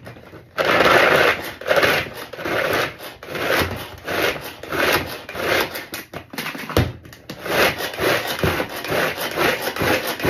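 Tupperware Supersonic Chopper worked by its pull cord: a run of rasping cord pulls, roughly one a second, spinning the blades to chop chocolate biscuits.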